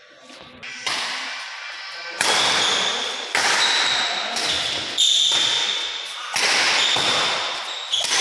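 Badminton rally in a large hall: a racket strikes a shuttlecock about six times, roughly once every second and a half, and each sharp hit rings on in the hall's echo.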